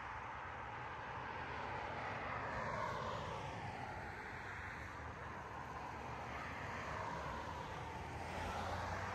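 A vehicle's steady rushing noise, its tone sweeping slowly down and back up.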